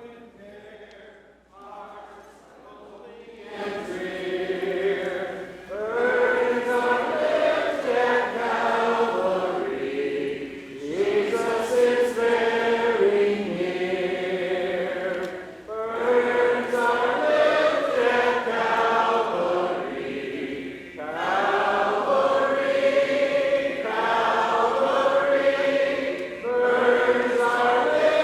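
Church congregation singing a hymn of invitation a cappella. A few faint sung notes come first, then the whole congregation comes in about three and a half seconds in, singing in phrases with short breaks between them.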